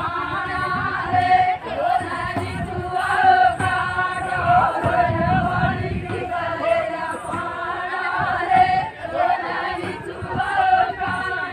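A group of women singing a Banjara Holi folk song together in chorus, the melody running on without a break, over crowd noise.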